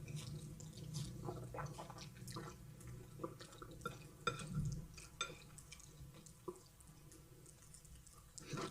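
Quiet wet eating sounds while eating fufu with egusi soup: scattered small smacks and clicks of chewing.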